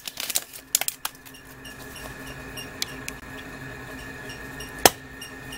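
Hard plastic of a surprise egg being handled and its wrapper band peeled: a few light clicks and crackles in the first second, then one sharp plastic snap near the end as the shell is worked open.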